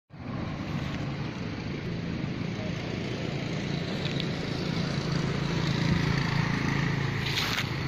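Steady low hum of a running engine over outdoor background noise, with a brief high-pitched sound near the end.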